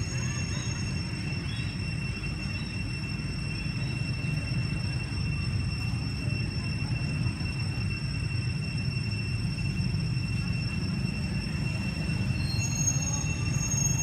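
Steady low rumble with faint constant high-pitched tones above it, unchanging throughout, with no distinct events.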